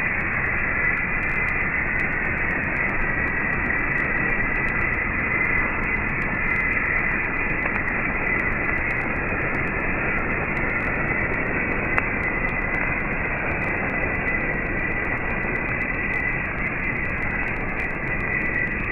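Slowed-down, muffled rushing of a campfire being blown with a bellows: a steady, dull noise with a thin steady whine.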